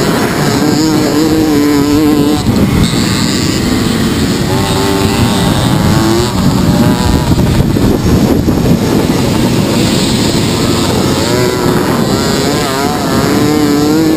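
Two-stroke Mofa moped engines running hard in a race, their pitch wavering, rising and falling as they rev and pass.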